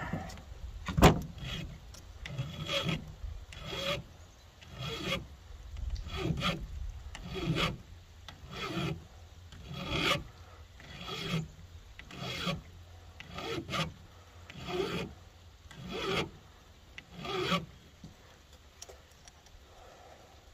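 A flat file rasping across a chainsaw chain's rakers (depth gauges), taking them down with slow, even strokes at about one a second. The first stroke, about a second in, is the loudest, and the strokes stop a few seconds before the end.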